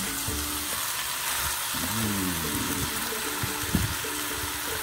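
Marinated chicken pieces frying in hot oil with chopped onion in a pan, a steady sizzling hiss. There is a single light knock about four seconds in.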